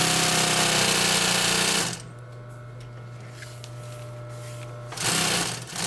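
Consew 206RB-5 walking-foot industrial sewing machine stitching through vinyl in a fast run of about two seconds, then stopping while its motor keeps humming. A second short burst of stitching comes near the end.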